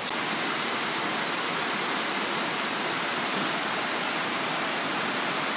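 Steady, even rush of water with no break, the sound of a riverside campsite in the rain.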